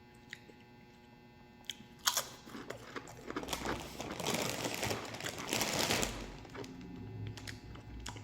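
Crinkling of a potato chip bag being grabbed and handled, starting with a sharp click about two seconds in and rustling on for about four seconds before fading.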